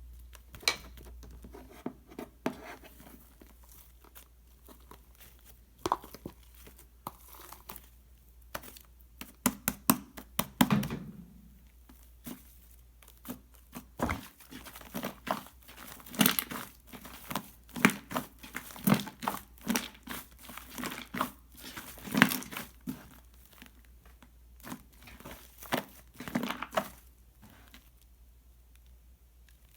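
Hands squishing and stretching a rainbow shaving-foam slime, giving irregular crackling pops and clicks, sparse at first and busiest from about halfway through.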